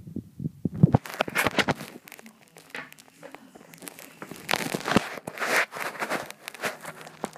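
A ferret working at a chicken neck: a dense run of crackling, crunching and scraping noises that starts about a second in.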